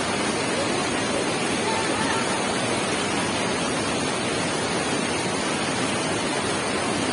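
Flooded mountain stream rushing over boulders and rapids: a steady, unbroken roar of fast water.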